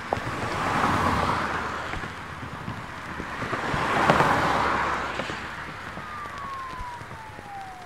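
Street traffic sound effect: two vehicles pass by, one about a second in and one about four seconds in, each a rush of noise that swells and fades. From about six seconds a siren wails, one long tone falling slowly in pitch.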